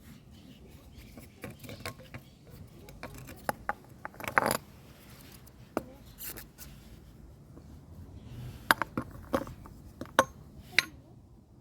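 Scattered light clinks and knocks of hard objects being handled, about a dozen irregular strikes, with a cluster of louder ones near the middle and several more in the last few seconds.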